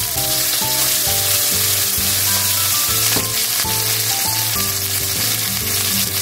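Flour-dusted chicken thigh pieces sizzling steadily in hot oil in a frying pan as they are turned with chopsticks, cooking through after both sides have been seared.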